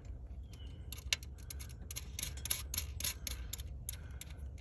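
Irregular light clicks and taps of a hand tool working a small 10 mm bolt while a replacement alternator is fastened in place.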